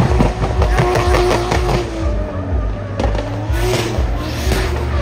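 Drift car's engine revving hard with rapid stuttering strokes in the first two seconds, then held at high revs as the car slides, with tyre squeal.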